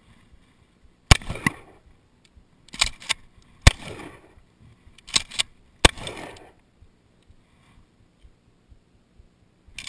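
Mossberg pump-action shotgun firing three shots about two and a half seconds apart, each echoing briefly. Between shots the pump is worked with a quick double clack, and another sharp report comes right at the end.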